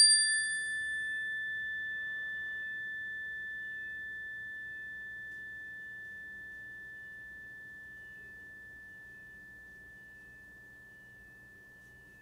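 A struck bell's clear, high ringing tone, slowly fading away and dying out about nine seconds in.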